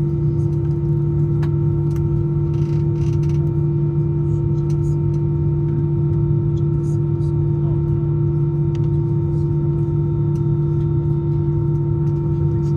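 Steady drone inside the cabin of an Airbus A319-111 on the ground, a low hum with an unchanging higher tone, with a few faint clicks and rustles.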